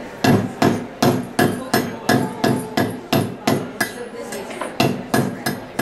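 Hand hammer striking a small metal strip on a steel anvil in a steady rhythm, about three blows a second. After about ten blows there is a pause of about a second, then a few more blows near the end.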